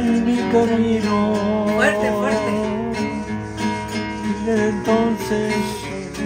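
Classical guitar played live, with a voice singing a slow, wavering melody over it.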